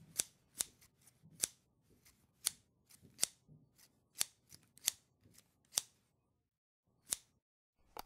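A series of about ten short, sharp clicks spaced irregularly, roughly one every half second to a second, with a pause of over a second near the middle. They are sound effects timed to an animated intro.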